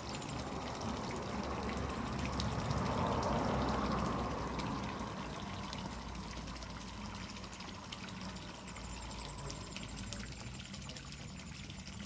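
Water pouring in a steady stream from the tap of a giant samovar fountain, splashing into a teacup-shaped basin full of water. The splashing swells for a couple of seconds about three seconds in.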